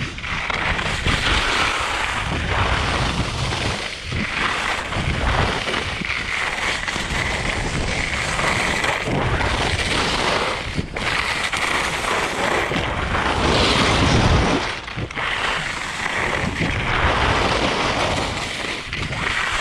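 Rossignol skis carving and scraping over packed piste snow through a series of turns, with wind buffeting the action camera's microphone in a heavy rumble. The noise swells and dips with each turn, loudest in a gust about fourteen seconds in.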